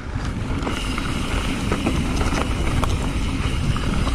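Mountain bike rolling along a dirt forest trail: a steady rumble of tyres and wind on the camera microphone, with scattered clicks and rattles from the bike.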